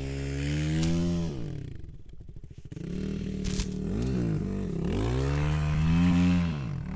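Dirt bike engine being ridden on and off the throttle, its pitch rising and falling repeatedly. About one and a half seconds in it drops back to a low, quiet tick-over for about a second, then picks up again.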